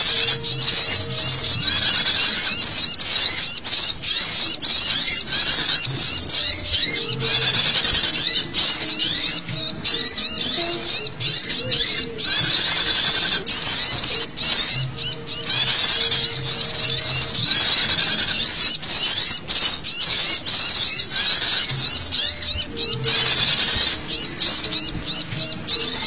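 Noisy chorus of many small songbirds, sunbirds and white-eyes among them, calling over one another in rapid, high, sweeping chirps without a break. It is a bird-lure call track, played to draw small wild birds in.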